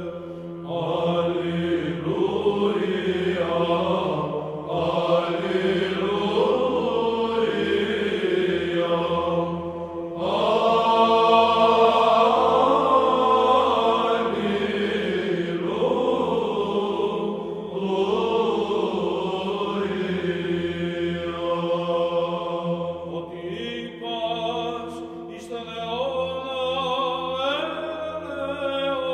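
Chanted vocal music: voices singing long, drawn-out melodic lines that slide between notes, over a steady held low note.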